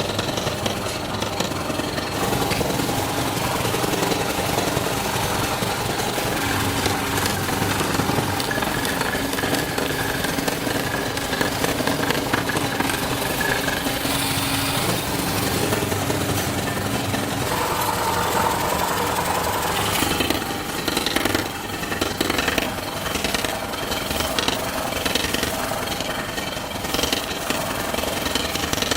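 Continuous metalworking machinery noise with rapid mechanical hammering and motors running. The sound changes character about two-thirds of the way through.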